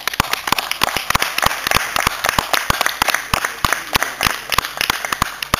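A small crowd applauding at the end of a song, with single sharp hand claps standing out of the steady clapping.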